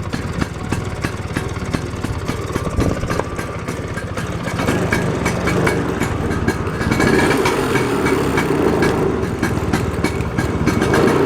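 A Vespa scooter's engine running with a steady fast pulse, getting louder about four and a half seconds in and again around seven seconds in.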